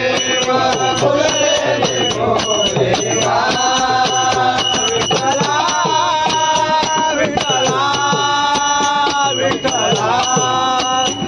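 Men singing a Marathi abhang, a devotional song, in long held, wavering notes over a steady beat of sharp percussive clicks.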